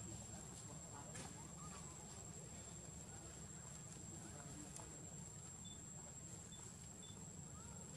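Quiet outdoor ambience with a steady high-pitched insect trill, as from a cricket or cicada, and a few faint clicks and short chirps.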